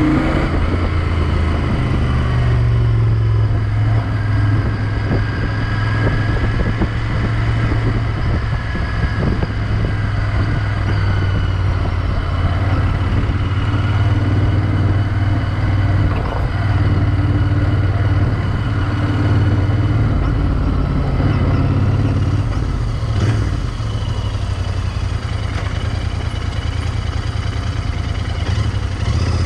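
Royal Enfield Interceptor 650's parallel-twin engine running steadily as the motorcycle rides along a city street, easing off briefly about three-quarters of the way through.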